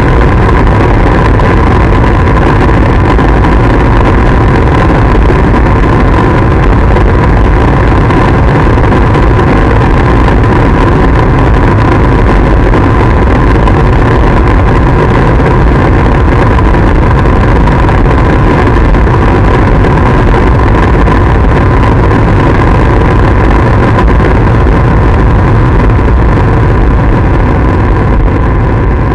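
Harsh noise / power electronics: a loud, unbroken wall of distorted noise with a steady high hum running through it and heavy low rumble beneath, beginning to fade near the end.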